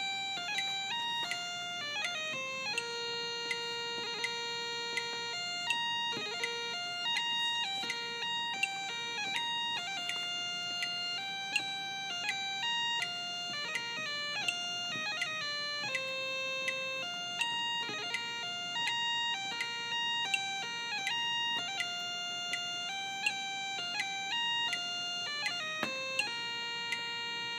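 Electronic bagpipe practice chanter playing a pipe tune: a single steady electronic tone stepping from note to note, with quick grace-note flicks between many of the notes. The tune breaks off briefly near the end, then settles on a held note.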